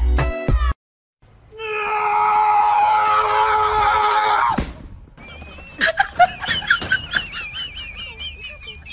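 A voice screaming loudly for about three seconds and cutting off suddenly, followed by high, wavering squeaky cries.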